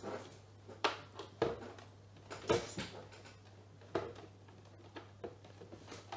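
Scattered small clicks and knocks, about five of them, from a keyboard's mains power adapter and its lead being handled and plugged in.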